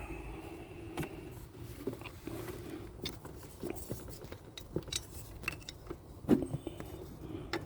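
Light metallic clinks, taps and scrapes of a serpentine belt tensioner being handled and fitted into place on the engine by hand, with a sharper knock about six seconds in.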